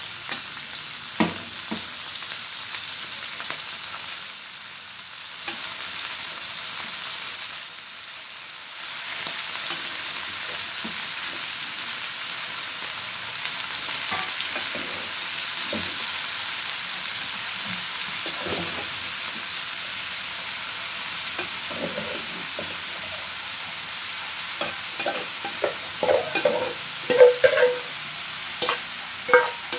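Freshwater snails in their shells frying in hot oil in a wok: a steady sizzle with scattered clicks. Near the end comes a run of sharp clattering knocks as the snails are stirred with a coconut-shell ladle.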